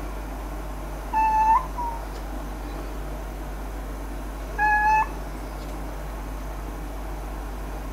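A cat meowing twice: two short calls about three seconds apart, each held at one pitch and flicking upward at the end.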